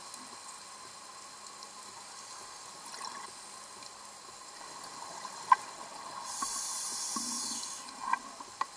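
Underwater sound of a scuba diver breathing through a regulator: one exhalation, a hissing rush of bubbles lasting about a second and a half, comes about six seconds in. Around it lie a quiet steady background and scattered sharp clicks, the loudest about five and a half seconds in.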